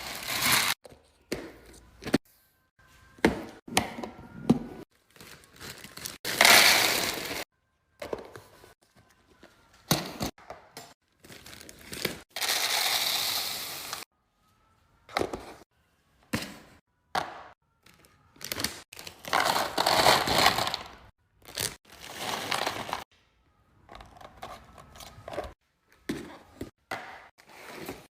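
Groceries and containers being handled and set down during a fridge restock: a string of clacks, knocks and thuds, with crinkling packaging and longer stretches of rustling noise between quiet gaps.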